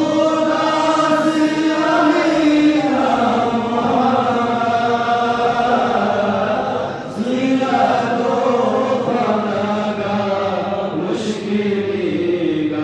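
Men's voices chanting together in long, drawn-out lines of a devotional chant, with a short break between phrases about seven seconds in.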